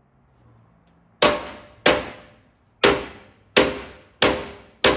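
Short-handled hammer striking the old steel of a stairway six times, each blow a sharp metallic clang with a short ringing tail. The blows are meant to knock the old stair post and stringer loose.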